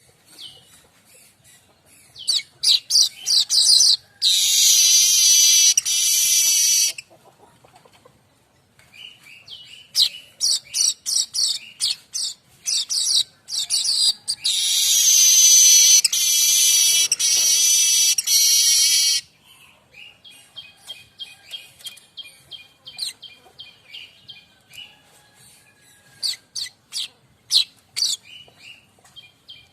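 Streaked weaver singing: runs of quick, high chirps broken twice by a long, loud, harsh buzzing trill lasting some three to four seconds, then softer chirping.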